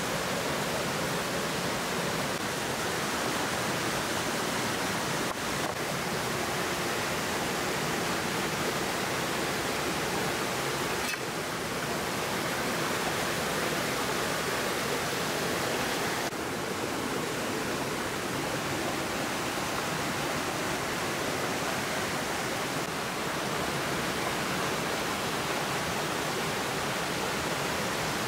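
Steady rush of a shallow, fast-flowing stream running over rocks, an even wash of water noise.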